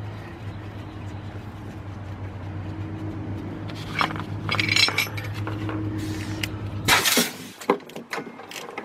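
Metal clinks and taps as a brake caliper's bottom bolt is fitted by hand, the loudest cluster about seven seconds in. Under them a steady low machine hum cuts off abruptly at about the same point.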